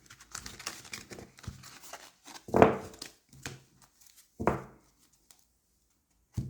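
Tarot cards being handled and shuffled: a crackling rustle, with louder thumps about two and a half and four and a half seconds in.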